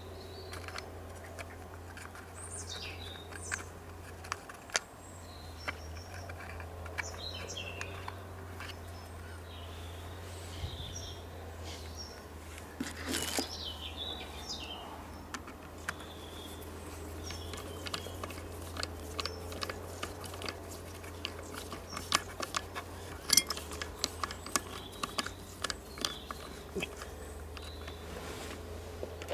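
Light clicks and taps of a metal hand tool working on a chainsaw's housing and screws, coming thicker and faster in the second half, with birds chirping in the background.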